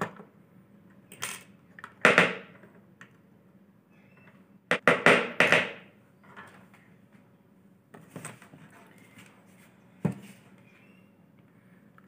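Tools and small electronic parts handled on a wooden worktable: a series of separate clicks and clatters, the loudest about two seconds in and a quick cluster of several around five seconds.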